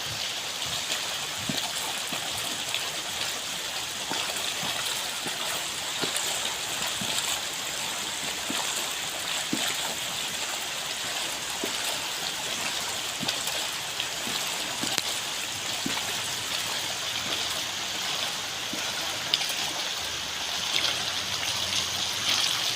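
Water running steadily into a swimming pool, trickling and splashing without a break.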